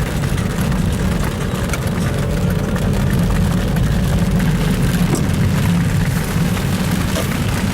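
Steady engine and road rumble of a small convertible, heard from inside the cabin, with faint scattered ticks of rain on the car.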